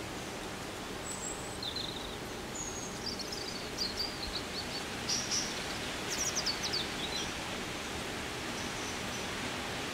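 Outdoor ambience: a steady hiss with small birds chirping in quick short calls, busiest from about three to seven and a half seconds in.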